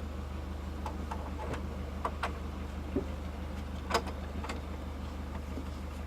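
Boat engine running steadily at low revs, a low hum, with a few light clicks and clinks on board, the sharpest about four seconds in.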